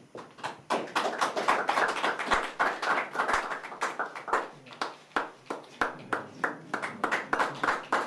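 A small crowd applauding, many separate hand claps heard close together, starting just under a second in.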